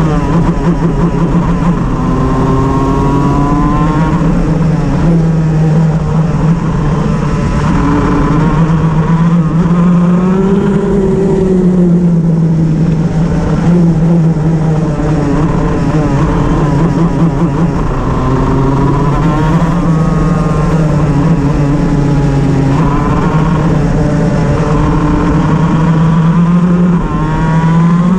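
Shifter kart's two-stroke engine running hard, its note repeatedly rising and falling with throttle and gear changes. It is running with a misfire.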